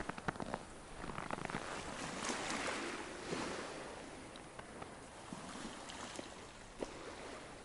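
Slush ice (shuga) jostling in the small waves at the lake's edge: a hissing, ringing rustle full of tiny clicks and tinkles. It swells and eases as each wave washes in.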